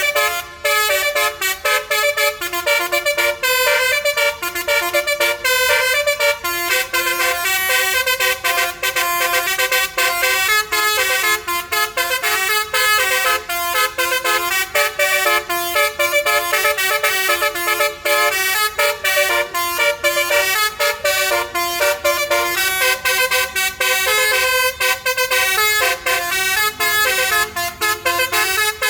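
Telolet basuri musical horn on an MSM tour bus playing a continuous tune, its tones stepping up and down in quick short notes.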